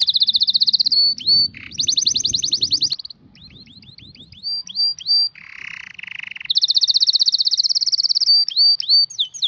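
Canary singing: fast rolling trills and runs of quick rising and falling notes, loud and high-pitched, with a brief hissing buzz about halfway through.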